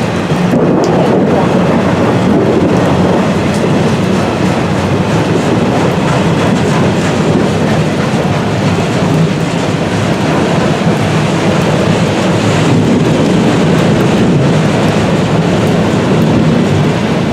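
CSX freight train rolling past close by, its wheels on the rails in a loud, steady rumble.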